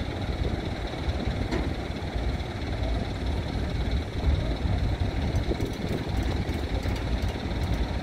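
Low, steady rumble of large marine diesel engines as a tugboat works a ship off the quay during unberthing, with wind buffeting the microphone.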